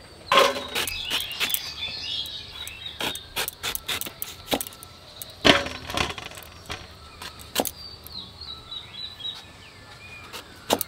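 A knife cutting raw green mangoes held in the hand: irregular crisp cuts and clicks, the loudest about half a second in and near six seconds.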